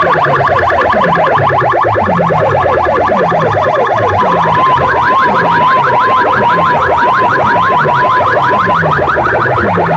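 Loud electronic DJ competition music from a large sound system: rapid repeated synth chirps over bass thumps about every 0.7 seconds, with a warbling siren-like tone that joins about 4 seconds in and stops near 9 seconds.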